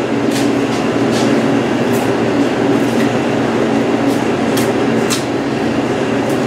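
Steady mechanical hum of a walk-in cooler's refrigeration unit running, with light sharp clicks about once a second.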